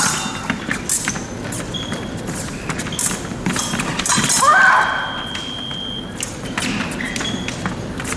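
Épée fencers in a bout: stamping footwork and sharp clicks and knocks along the piste, with a short rising shout from a fencer about four and a half seconds in. Brief high electronic beeps sound several times, one held for over a second.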